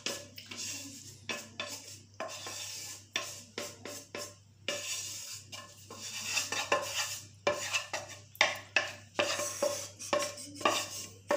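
Wooden spoon scraping and knocking inside a frying pan as thick béchamel sauce is scooped out of it, a run of irregular scrapes and sharp taps.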